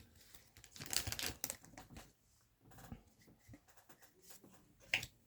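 Faint crinkling of a foil trading-card booster pack wrapper and rustling of cards being handled, with a louder rustle about a second in and a sharp tick near the end.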